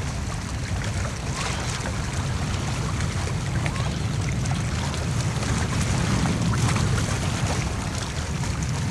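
Wind buffeting the camcorder microphone: a steady low rumble with a hiss of wind and water over it.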